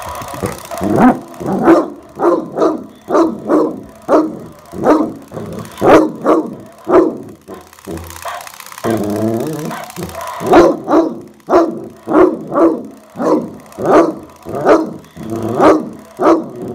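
Bloodhound barking over and over at a robotic skeleton dog toy it dislikes, about two deep barks a second, with one longer drawn-out call about nine seconds in.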